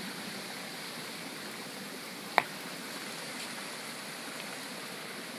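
Steady rush of running water, with one sharp click about halfway through.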